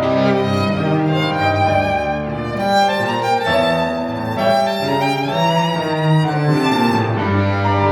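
Classical chamber music: a violin playing with vibrato over held cello notes.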